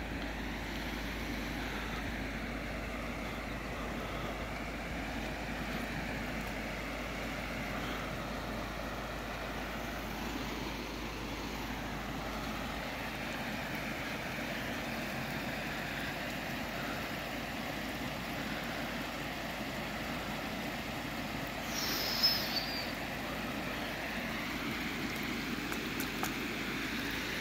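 Steady rush of floodwater from the overflowing Cèze river spreading over a road, with a brief high chirp about three-quarters of the way through.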